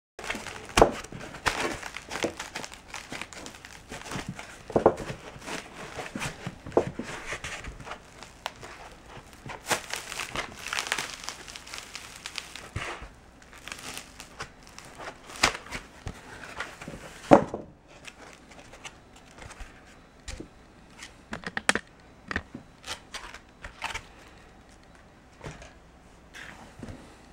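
Kaizen foam (layered closed-cell foam) being handled by hand, with its cut-out pieces lifted from their outlines: irregular rustling, scraping and crinkling of the foam, with several sharp knocks. Busier over the first two-thirds, then sparser and quieter.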